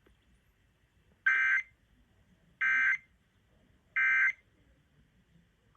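EAS end-of-message signal: three short bursts of two-tone digital data, about 1.3 seconds apart, marking the end of the alert.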